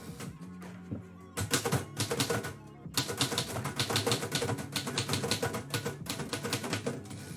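Typewriter keys clacking in quick runs as a poem is typed: a short burst about a second and a half in, then a longer run of about four seconds. Lo-fi music plays underneath.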